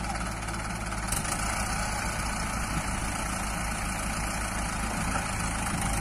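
Diesel engines of a Mahindra Arjun 555 DI tractor, stuck in mud with a loaded trolley, and a JCB 3DX backhoe running steadily together.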